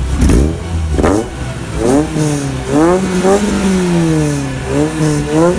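Lotus Elise S1's Rover K-series four-cylinder engine being revved in repeated short throttle blips through a stainless twin-tip exhaust, each blip a quick rise and fall in pitch, six or seven in all.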